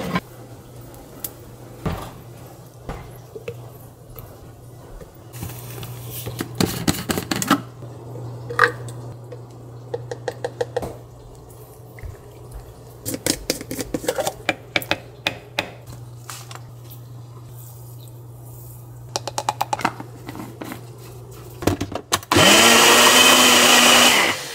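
Clicks, knocks and clatter of kitchen containers being handled over a low steady hum, then near the end a single-serve bullet-style blender runs for about two seconds, the loudest sound, and stops abruptly.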